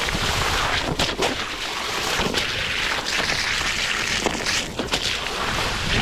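Steady rushing hiss of a Onewheel GT being ridden fast through a flooded, muddy trail: water and mud spraying off the tyre, mixed with wind on the microphone. Scattered sharp knocks from the board hitting bumps run through it.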